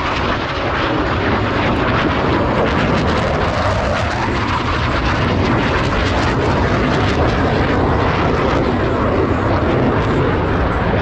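Loud, steady jet noise from Blue Angels F/A-18 Super Hornet fighters flying past, with the tone slowly sweeping as they pass.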